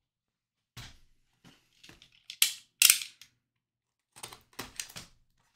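Trading card packaging being handled and opened: scattered sharp clicks and crinkling snaps of cardboard and plastic wrapper, with two loud snaps a little under halfway through.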